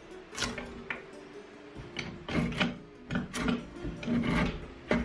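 Drawknife shaving the wooden handle of a cant hook held in a shaving horse: a run of short scraping strokes, about one a second, as shavings peel off the wood.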